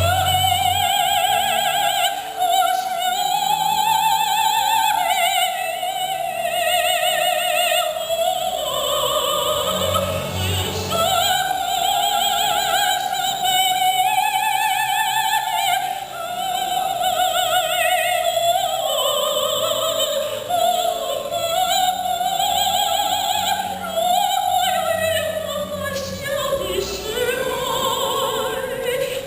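A soprano singing in an operatic style: long, high held notes with strong vibrato, breaking between phrases, over a quiet accompaniment.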